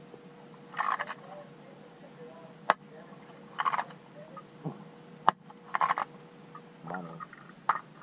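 Z-Man ChatterBait Jackhammer StealthBlade, a bladed jig with a clear blade, heard underwater while being yo-yoed. Short bursts of rapid blade chatter come every two to three seconds as it is lifted, with a few sharp clicks between them and a faint steady hum underneath.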